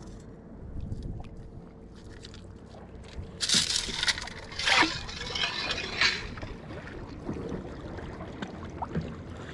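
Water sloshing and splashing as a stainless steel sand scoop loaded with rocks is swished in shallow water to rinse it, with the loudest splashes about three and a half and five seconds in.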